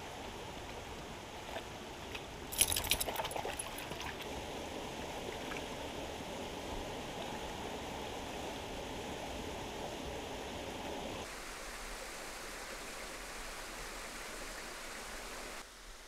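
Shallow creek water running and trickling over rocks, with a short burst of splashing about three seconds in. The water sound changes abruptly to a thinner, quieter wash about two-thirds of the way through.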